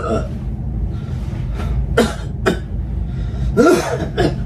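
A person's short throaty vocal sounds, five brief bursts spread across a few seconds, over a steady low rumble.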